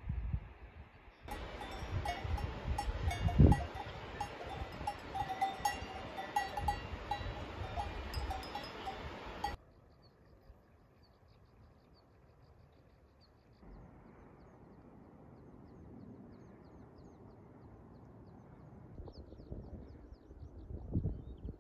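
Cowbells clanking irregularly for about eight seconds, many bells ringing at once, with one loud low thump a couple of seconds in. After an abrupt cut there is only faint wind with a few faint high chirps.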